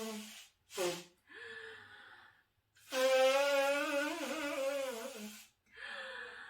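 A woman making loud, drawn-out voiced honks from the throat. The tail of one honk is followed by a short honk about a second in, then a long honk of about two and a half seconds, with a breathy intake of air before and after it.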